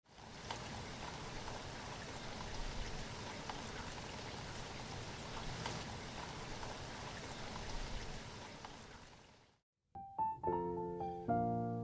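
Faint, even rushing noise with occasional soft ticks, like running water, that fades out about nine seconds in. After a short gap, background music with sustained keyboard-like notes begins.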